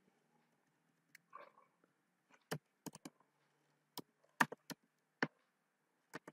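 Faint, irregular keystrokes on a computer keyboard, about a dozen sharp clicks with gaps between them, as code is typed.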